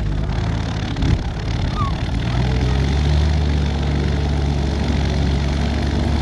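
Light aircraft's piston engine running steadily, with its engine note shifting to a different speed about two and a half seconds in.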